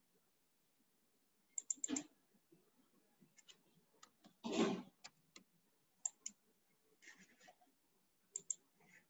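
Quiet computer mouse clicks, scattered and mostly in pairs, with a short louder burst of noise about four and a half seconds in.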